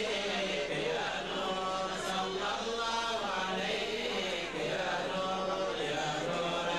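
A group of men chanting Islamic devotional verses together into microphones, in long drawn-out notes that rise and fall in repeating phrases.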